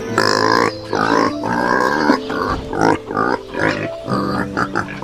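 Farm animal calling repeatedly, a run of short calls with brief pauses between them.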